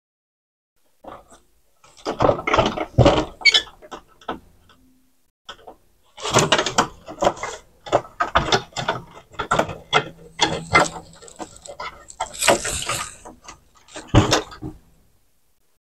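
Hands working on the opened CD changer's plastic and sheet-metal parts and cables: clusters of clicks, rattles and scraping, with a sharper knock near the end.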